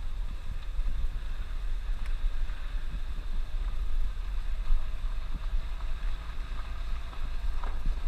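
Suzuki Jimny driving along a dirt road: a low, uneven rumble of the engine and tyres, with wind buffeting the microphone of a camera mounted on the outside of the body.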